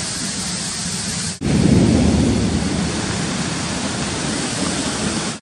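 Steady rain falling, a continuous hiss. After a sudden break about a second and a half in, it comes back louder with a low rumble that eases off within a second or so.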